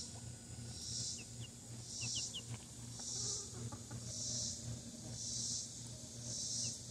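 A week-old chick peeping in a few short, falling cheeps, over an insect chorus that swells and fades as a hiss about once a second.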